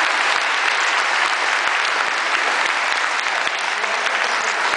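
A crowd applauding: many hands clapping steadily at an even level.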